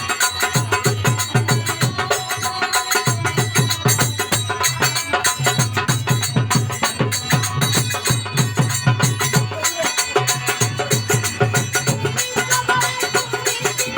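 Instrumental passage of folk music with a fast, steady hand-drum beat under melody instruments, the drumming pausing briefly a few times.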